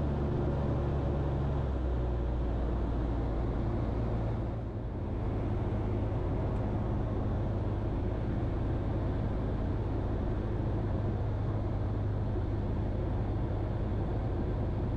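Steady engine drone of the Super Petrel 100's Rotax 912 with airflow noise, heard inside the cockpit on the landing approach. The engine note shifts about two seconds in and dips briefly around five seconds in.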